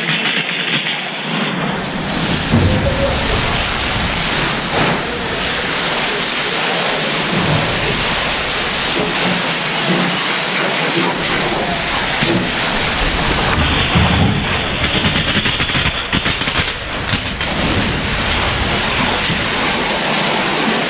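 Fire hose water stream being played onto burning material: a loud, steady hiss and splatter of water and steam, with bouts of low rumble.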